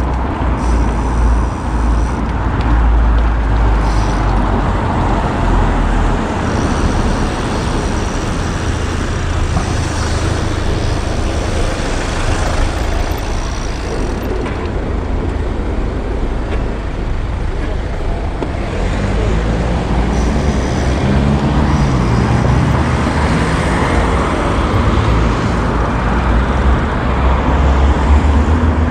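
City road traffic heard from a moving bicycle, a steady mix of car and bus noise with a heavy low rumble that eases after about six seconds and builds again near the end.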